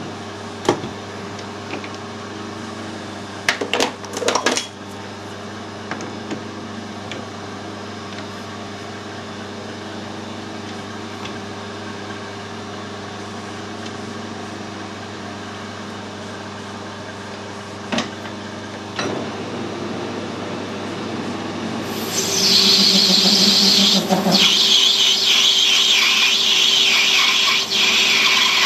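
Metal lathe working a brass pin: a steady machine hum with a cluster of sharp clicks and knocks about four seconds in. About twenty-two seconds in, a much louder, hissy machining noise starts as the lathe runs and cuts the brass, and it carries on to the end.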